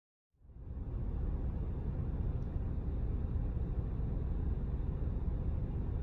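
Silence, then about half a second in a steady low rumble of road and engine noise fades in, heard from inside a car's cabin.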